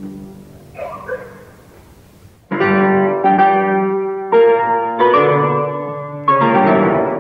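Solo piano playing a slow succession of full chords, each struck firmly and left to ring and fade before the next. After a faint, quiet first two and a half seconds, about five chords sound.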